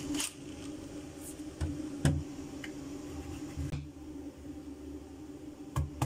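Kitchen knife cutting through a peeled raw tuber on a wooden chopping board: a few separate soft knocks of the blade meeting the board, over a faint steady hum.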